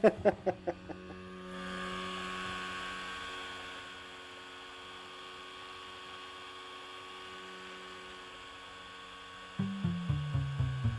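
A boat motor running at a steady pitch, an even hum with no change in speed. Plucked music dies away at the start, and music with a bass beat comes in near the end.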